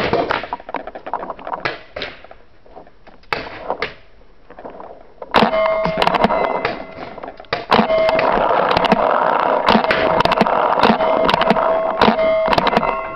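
Paintball game: scattered sharp pops and knocks of markers firing and paintballs striking bunkers. About five seconds in, this turns into a loud, dense stretch of rapid pops and impacts with a steady hum running through it.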